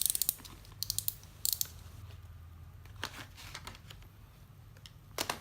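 Hard plastic blister packaging crackling and clicking as it is bent and pried open by hand: a quick run of sharp crackles at the start, more around one and one and a half seconds in, scattered faint clicks, and another burst near the end.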